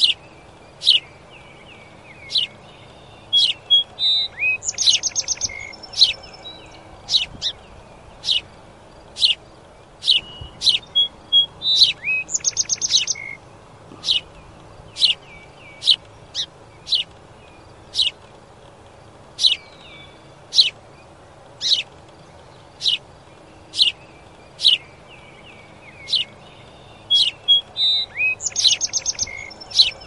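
Sparrow chirping: single sharp chirps about once a second, broken three times by a short, fast trill of notes, around five seconds in, around twelve seconds in and near the end.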